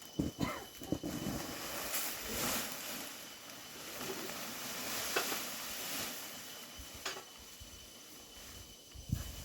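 Dry rice stalks rustling and swishing in irregular bursts, as when paddy is cut and handled by hand, with a few soft thumps near the start and again near the end.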